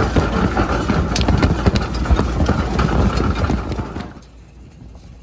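Grimme GT 170 potato harvester running, with potatoes clattering and knocking over its steel roller and sieve-web bars above the rattle of the machine. About four seconds in it drops suddenly to a much quieter, steady hum.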